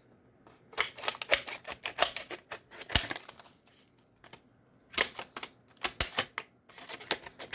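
Hard plastic clamshell packaging being cut with a Zibra 'Open It!' package opener: quick runs of sharp crackling clicks, in three bursts with short pauses between.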